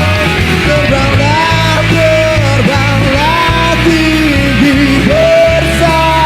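Rock band playing loud, with a lead melody that slides and bends between notes over a steady bass.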